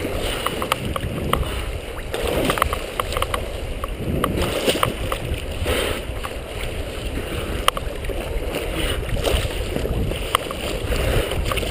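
Choppy lake water sloshing and splashing right at the surface, rising and falling in swells, with many small sharp ticks of drops and bubbles.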